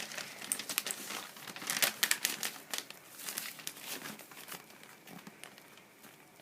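Irregular crinkling and tearing of something crinkly, crackling in quick uneven bursts, busiest in the first half and dying away near the end.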